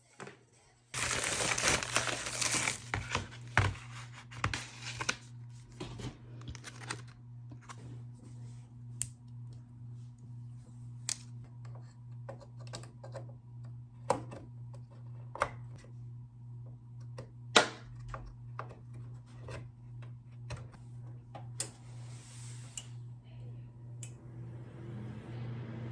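Newly built desktop PC powering up: its fans start with a loud rush of air about a second in, ease off after a couple of seconds and settle into a steady hum. Scattered sharp clicks, like keys being pressed, sound throughout.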